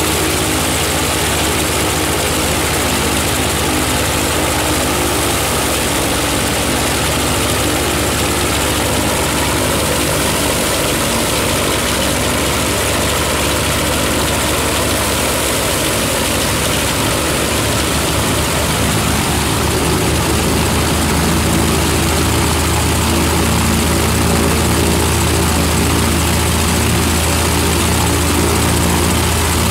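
A Bristol Hercules 14-cylinder sleeve-valve radial engine running on a ground run, turning its propeller. It is loud and steady, with its tone shifting and growing a little louder about two-thirds of the way through.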